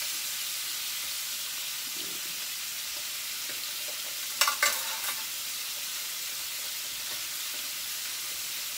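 Chicken pieces sizzling steadily as they brown in a frying pan. A short run of clinks about halfway through.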